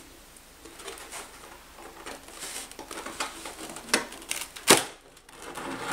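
Hands handling a depron foam RC model aircraft while undoing the two nylon screws that hold its wing: light scratchy rustles and small clicks, with a sharper click about four seconds in and a louder one just after.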